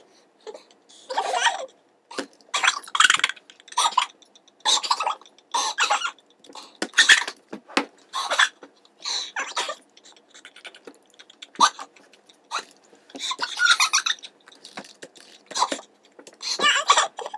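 A young woman's stifled, breathy giggling in short fits and gasps, broken by brief pauses.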